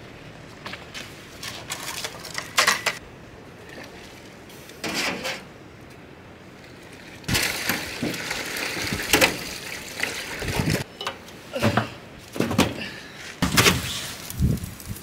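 Plastic sap buckets knocking, then sap pouring into the pans of a barrel-stove maple syrup evaporator for a few seconds about halfway through. Several metal clanks follow near the end as the stove's firebox door is opened.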